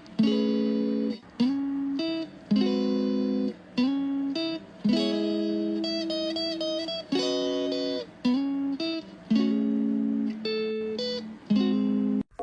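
Background music: a plucked string instrument playing a slow run of chords, a new chord struck about every second.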